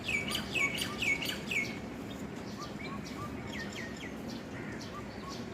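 Birds chirping: a quick run of loud, downward-sweeping chirps in the first second or two, then softer chirps a few seconds in, with another bird repeating a short, lower note throughout.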